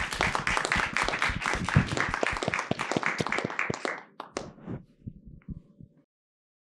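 A small audience applauding. The clapping thins out about four seconds in to a few scattered claps and stops near the end.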